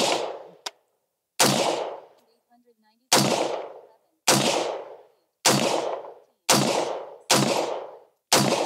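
AR-15 rifle with a 16-inch barrel firing 5.56 Norma 62-grain rounds one shot at a time: seven shots about one to one and a half seconds apart, each report trailing away over most of a second.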